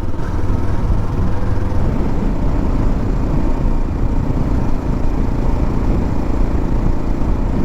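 Motorcycle engine running steadily at road speed, with a heavy steady rush of noise over it.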